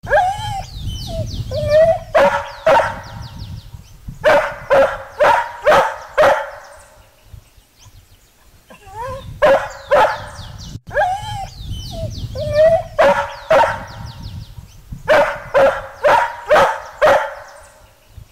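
Dog barking in quick runs of several barks, with yelps and whines between the runs. The same run of barking comes round again about halfway through.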